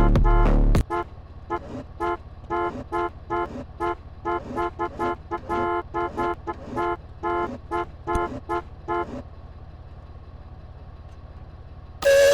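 A horn sounding a rapid series of short toots in an uneven rhythm, many in a row, over a steady low hum, after loud bass-heavy music cuts off under a second in. The toots stop about three seconds before the end, leaving only the hum, and loud music comes back in the last moment.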